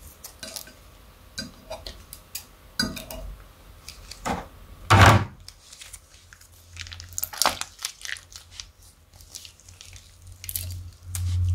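Clear glossy slime with small black beads being squeezed out of a plastic piping bag: irregular crackles, squelches and plastic crinkles, with one louder pop about five seconds in.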